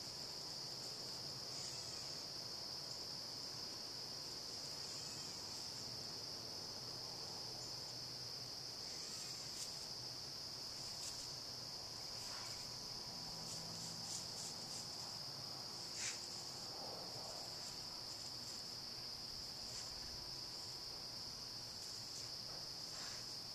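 Steady, high-pitched insect chorus trilling without a break, with a few faint clicks scattered through it, the clearest about two-thirds of the way in.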